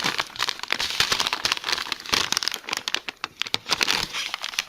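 MRE ration packets and pouches crinkling and rustling as they are handled, a dense run of irregular crackles.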